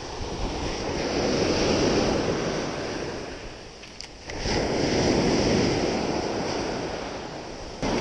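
Black Sea surf: waves breaking and washing up a sandy beach on a rough day, swelling twice with a brief lull about four seconds in, with wind on the microphone. A sharp click about four seconds in and another near the end.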